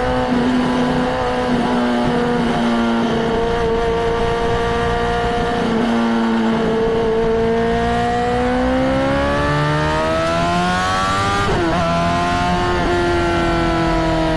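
Honda CBR600RR's inline-four engine running. Its pitch holds steady, dips, then climbs for a few seconds before dropping sharply twice near the end.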